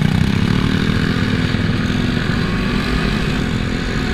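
Motorcycle engines running as a group of bikes pulls away and rides off, steady in level, with a noisy rush of air over the rider's helmet microphone.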